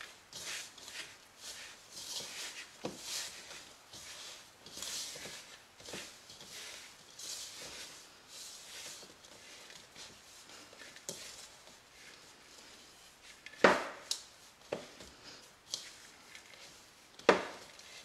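Hands mixing crumbly butter-and-flour cookie dough in a plastic bowl: repeated soft rubbing and crumbling strokes, about one or two a second, with two sharper knocks against the bowl near the end.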